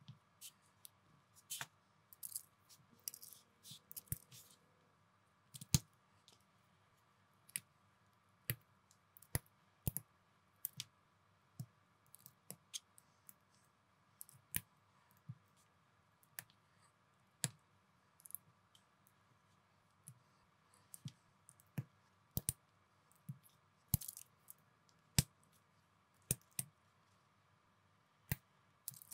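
Small plastic building bricks (unofficial Lego-compatible parts) clicking and snapping together as they are pressed on and handled, in sharp irregular clicks about once a second, sometimes several in quick succession.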